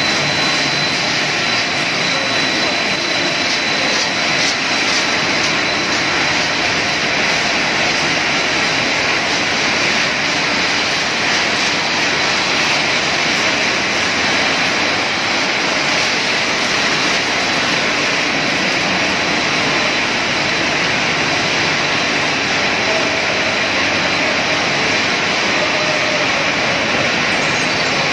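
Cereal-hoop extrusion production line machinery running: a continuous rushing roar of fans, drums and conveyors with a thin, steady high whine on top.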